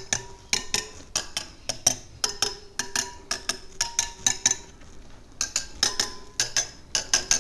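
Spokes of a Sur Ron electric dirt bike wheel being struck one after another with a metal tool, each a sharp metallic tink with a short ring, about two to three a second with a brief break partway through. The pitch of each spoke's ring shows its tension: a dull, dead-sounding one is loose and needs tightening.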